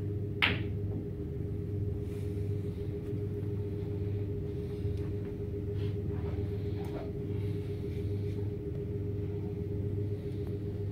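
One sharp click of a snooker ball being struck, about half a second in, followed by a couple of faint softer knocks later, over a steady low hum of the room.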